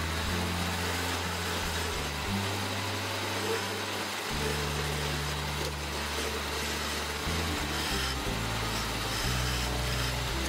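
Wood being worked on a lathe, a steady scraping hiss, under background music whose low notes change every second or two.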